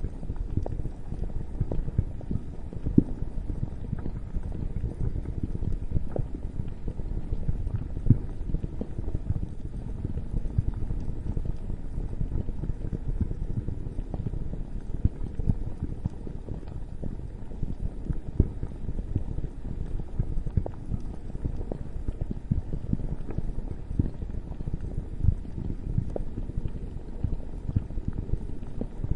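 Lava sound effect: a steady low bubbling and rumbling, dense with pops and crackles.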